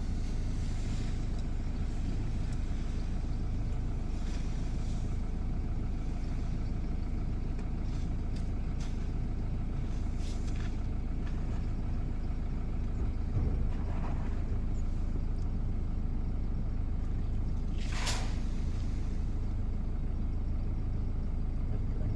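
Vehicle engine idling steadily, with a brief sharp noise about eighteen seconds in.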